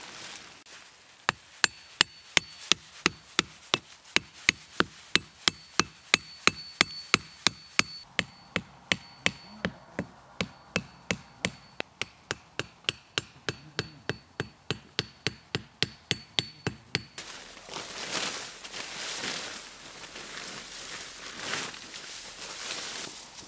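A stake being hammered into the ground to peg out a tarp shelter: an even run of sharp strikes, about three a second for some fifteen seconds, with a high ringing tone under them. After the hammering stops, a sleeping mat and tarp rustle as they are handled.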